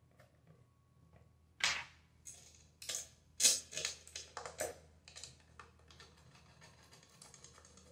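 Screwdriver and screws clicking and tapping against a Garen gate-opener motor's housing as the top screws are driven in. There is a sharp knock about one and a half seconds in, then a run of irregular clicks and taps, loudest in the middle, dying to faint ticking near the end.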